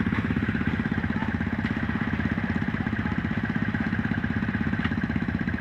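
ATV (quad bike) engine running steadily at low revs, its even firing pulse unchanged throughout, with a few faint clicks over it.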